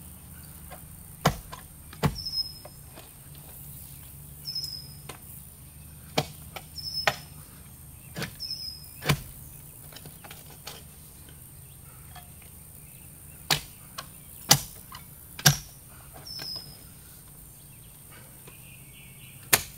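Clamshell post hole digger being driven into soil, about ten sharp chunks at uneven intervals as the blades bite into the ground, with lighter scraping between strokes. A bird gives short, high chirps now and then.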